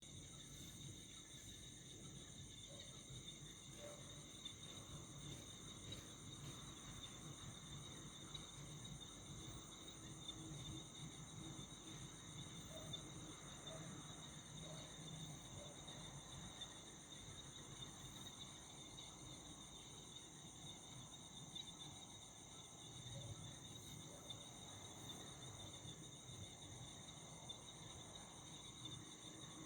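Faint, steady chorus of night insects such as crickets, a continuous high-pitched trilling on several pitches.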